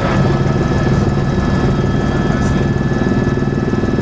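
Airbus AS350 B3 single-turbine helicopter in cruise, heard inside the cockpit: a loud, steady mix of rotor and engine noise with a few constant high whining tones over it.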